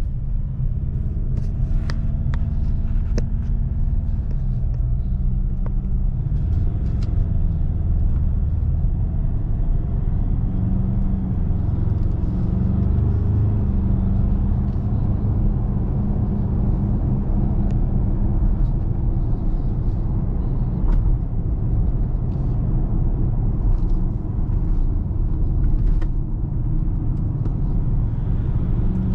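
Ford Ranger Raptor pickup driving: a steady engine hum and road rumble whose pitch shifts up and down a few times as the speed changes, with scattered light ticks.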